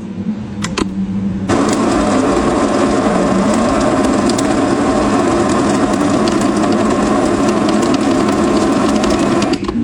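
Electric coffee grinder grinding beans: a low hum with a couple of clicks, then about a second and a half in the grinding starts suddenly and runs loud and steady, cutting off just before the end.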